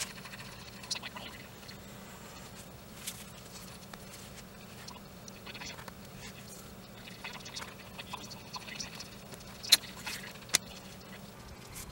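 Quiet rustling and scraping of leather pieces being handled and worked with a wooden-handled knife on a cutting mat, with scattered light clicks and two sharp taps near the end.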